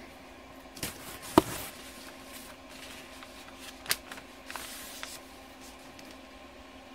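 Cardboard shipping box being opened by hand: a few sharp knocks and scrapes of the lid, the loudest about a second and a half in, then a sheet of paper rustling as it is lifted out.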